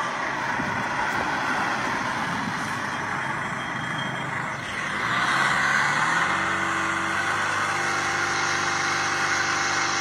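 Car engine running while its exhaust blows out black sludge with a thick rushing, spattering noise. About five seconds in the noise grows louder and the engine note rises, then holds steady.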